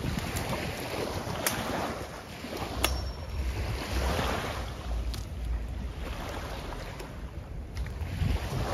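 Wind buffeting the microphone over rushing, splashing river water, with a few sharp clicks.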